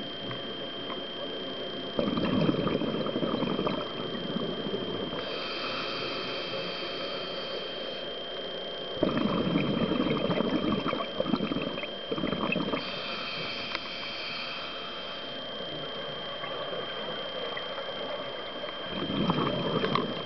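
Scuba regulator breathing underwater: a rush of exhaled bubbles about two seconds in, again around nine seconds and near the end, with a hissing inhalation between each. A steady high whine runs underneath.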